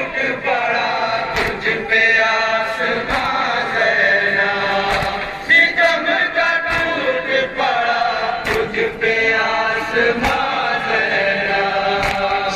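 A group of men chanting a noha lament in unison, punctuated by sharp slaps of hands beating on chests (matam).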